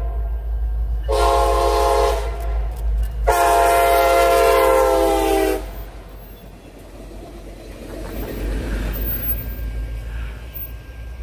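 Multi-tone air horn on a CSX EMD GP40WH-2 locomotive sounding a short blast, then a longer one of about two seconds. After the horn, the passing train's wheels rumble on the rails, swelling briefly near the end.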